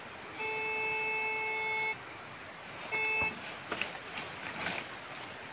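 Metal detector giving a steady beep for about a second and a half, then a second short beep: the detector's target signal over buried metal.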